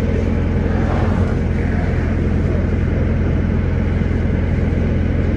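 Steady low mechanical drone of running machinery, an even engine-like hum that holds unchanged throughout.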